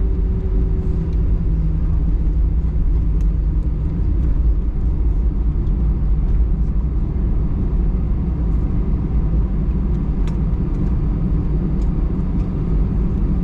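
Steady low rumble inside an Airbus A320-200's cabin with its engines running, the aircraft on the ground after landing. A faint steady hum fades out about a second and a half in.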